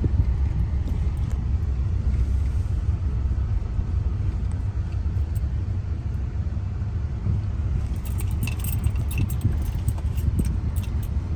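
Inside a moving car: steady low rumble of road and engine noise. From about eight seconds in, a quick run of light clicking and rattling joins it.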